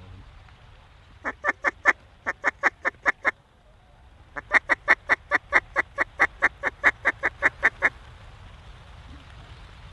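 Mallard hen duck call blown in two runs of quick, evenly spaced quacks, about five or six a second: a short run, a pause, then a longer run of about twenty notes. These are calls to work the circling mallards toward the decoys.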